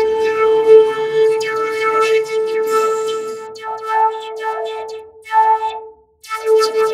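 A cartoon character's voice processed by audio effects into a steady buzzing tone held on one pitch, with garbled, warbling sweeps beneath it. It cuts out briefly about six seconds in.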